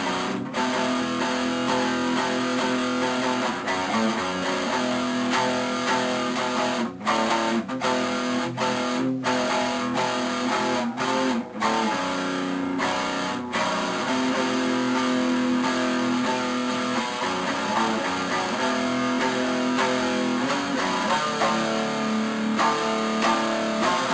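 Guitar-led background music with strummed chords.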